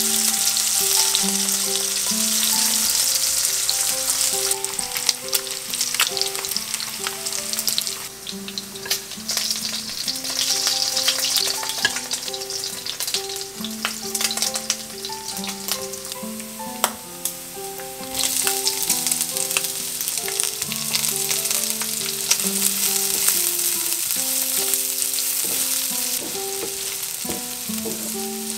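Pork belly slices sizzling in their rendered fat in a nonstick frying pan, the sizzle swelling and fading, with sharp clicks of metal tongs as pieces are turned and lifted out. Near the end sliced leek and garlic sizzle as they are stirred in the fat with a wooden spatula.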